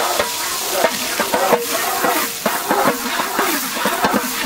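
Chopped onions frying in hot oil and ghee, sizzling steadily, with frequent knocks and scrapes as they are stirred.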